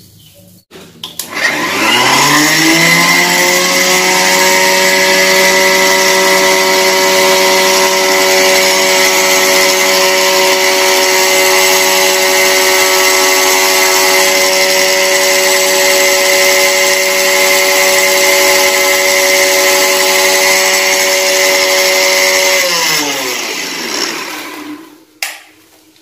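Sujata electric mixer grinder with a steel jar dry-grinding rice. The motor spins up with a rising pitch about a second in, runs steadily for about twenty seconds, then winds down with a falling pitch near the end.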